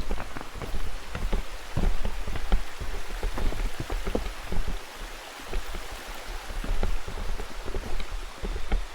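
Irregular patter of drops close to the microphone over a steady hiss, like rain falling on a surface near the microphone, with low rumble underneath.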